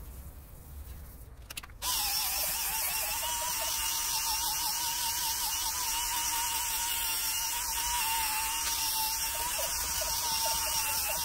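Yellow cordless drill whirring as it is worked against wet stone to scrub it clean. It starts suddenly about two seconds in and runs steadily, its pitch wavering slightly, until it stops at the end.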